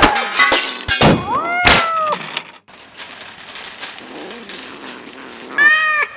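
Cat meows and yowls laid onto a plush zombie-cat puppet: a drawn-out call that rises and falls about a second in, a fainter wavering one after it, and a short strong yowl near the end. Quick sharp swishes and knocks in the first two seconds.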